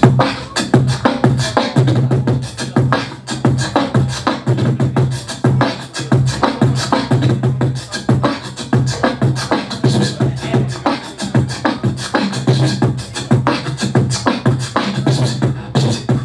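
Solo beatbox: a performer's mouth and voice making a fast, steady groove of kick, snare and hi-hat clicks over a pulsing hummed bass note.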